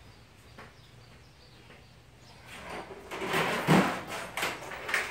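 Footsteps crunching on gravel, about two steps a second, starting a couple of seconds in and getting louder.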